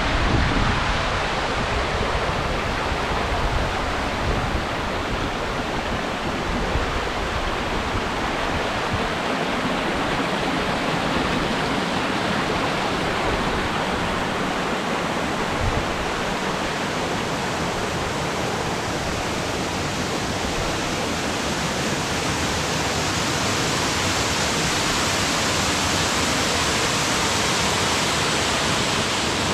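Waterfall pouring: a steady, loud rush of falling water, with some wind rumble on the microphone in the first couple of seconds.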